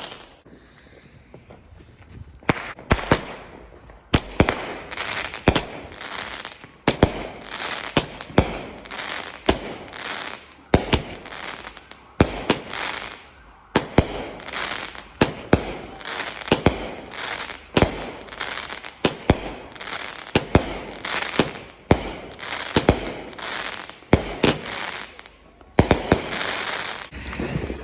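Consumer fireworks going off in a long rapid series of sharp bangs, about one to two a second, each trailing off briefly, starting a couple of seconds in.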